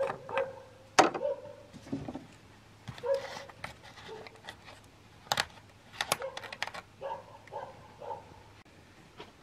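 An animal's short, pitched calls, coming in small groups of yelps several times, with a few sharp clicks in between.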